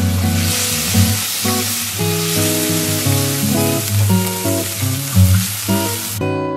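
Food sizzling in hot oil in a pan, a dense steady hiss that cuts off abruptly near the end, over gentle plucked acoustic-guitar background music.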